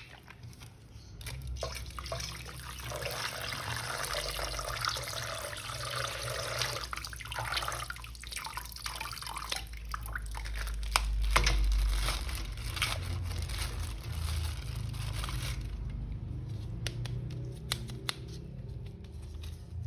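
Water running and splashing, with scattered small clicks and knocks, over a low rumble that swells about halfway through.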